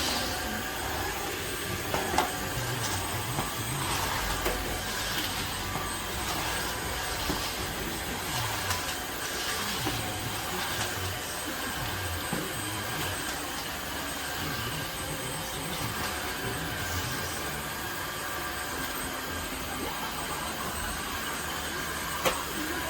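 Tineco Floor ONE S5 cordless wet-dry vacuum running steadily, its motor giving a thin high whine, with a few light knocks, one sharp near the end.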